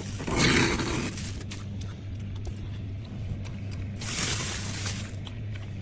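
Soft freezer frost crunching, in two louder bursts, one near the start and one about four seconds in, with small crackles between them over a steady low hum.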